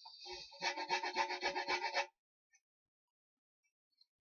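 Quick, rhythmic rasping strokes on wood, about seven a second, stopping about two seconds in.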